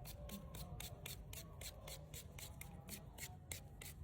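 Rhythmic scraping strokes, about five a second, evenly spaced and steady.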